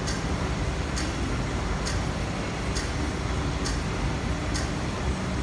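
Underground station platform ambience beside a parked train: a steady low hum, with a light, high tick repeating a little faster than once a second.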